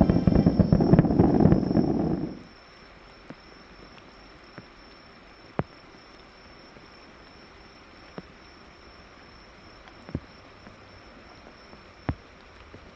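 Fireworks going off in a dense rapid barrage of bangs and crackles, which stops abruptly about two seconds in. After that there is quiet night air with a steady high insect trill and a few isolated sharp clicks.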